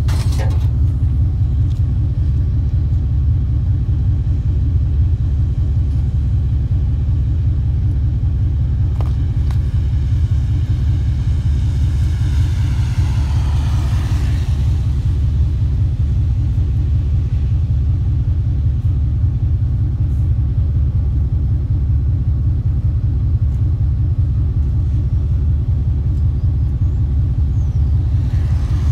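Steady low rumble of a vehicle's engine and road noise heard from inside the cab while driving, with a brief swell of higher-pitched noise about halfway through.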